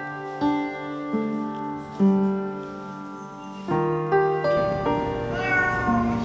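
Gentle piano music, with a cat meowing once, a drawn-out call that bends in pitch, near the end.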